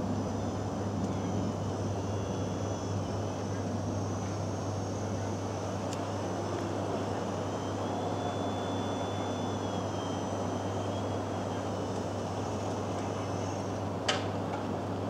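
Tower crane machinery running with a steady low hum and a faint high, wavering whine, which stops about fourteen seconds in. A single sharp click follows.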